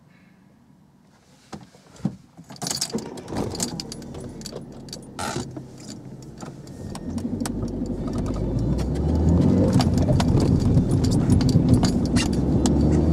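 Inside a car cabin: a few sharp clicks and rattles, then the car pulls away from a standstill, its engine and road noise swelling from about seven seconds in and staying steady.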